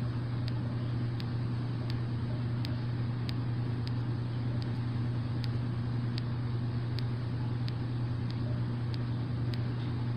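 A steady low mechanical hum with faint, sharp ticks about one or two a second.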